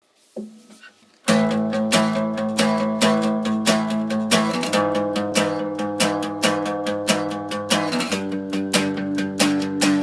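Acoustic guitar strummed in a steady rhythm, coming in about a second in and changing chords twice.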